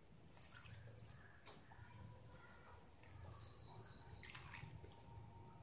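Faint trickle of water poured from a steel vessel into a steel mixer-grinder jar.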